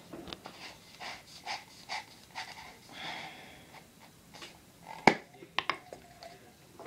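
A person breathing close to the microphone in short puffs, with soft handling noises and a few sharp clicks about five seconds in, the first click the loudest.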